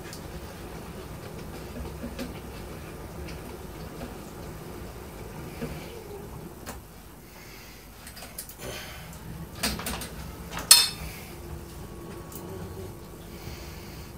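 Kitchen utensils and dishes being handled: scattered light clicks and knocks, a cluster of clatter around two-thirds of the way in, and one sharp ringing clink about three-quarters through, the loudest sound, over a low steady hum.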